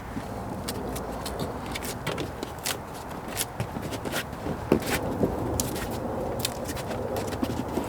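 Irregular sharp clicks, taps and scrapes of plastic and metal car-door parts being handled and fitted, as a cover goes back onto the inside of the door.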